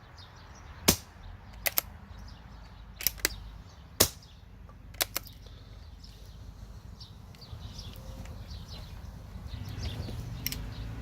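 Moderated CZ 452 .22LR rifle firing subsonic rounds: two sharp, suppressed shots about a second in and about four seconds in, with the bolt clicking in quick pairs between and after them. Birds chirp faintly and a low hum rises towards the end.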